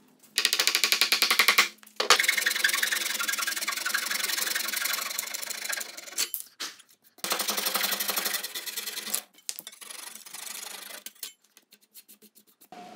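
Japanese-style pull saw cutting through hardwood in quick strokes, trimming the protruding end of a corner joint flush. The sawing stops briefly about six seconds in, starts again, and turns lighter and sparser near the end.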